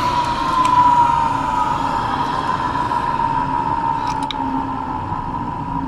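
Carrier furnace inducer vent motor running with a new plastic fan wheel: a steady whine whose pitch sinks slightly, over an airy hiss. A few faint clicks about four seconds in.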